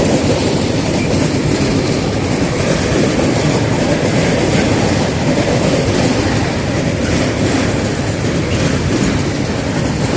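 A train passing at speed: a loud, steady rumble of the cars and their wheels running over the rails.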